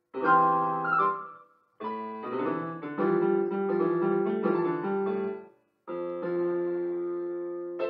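Electronic keyboard playing in a piano voice: two short chordal phrases, each cut off abruptly by a brief silence, then a long held chord that slowly fades.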